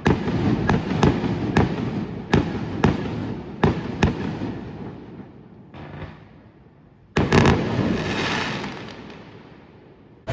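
Aerial fireworks bursting: a rapid string of sharp bangs with rumbling echoes, then, after a lull, a loud burst a little after seven seconds followed by crackling that fades away.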